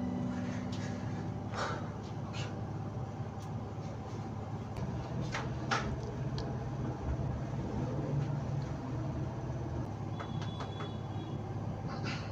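A steady low hum with a few scattered light clicks and knocks, and a short high tone with quick ticks about ten seconds in.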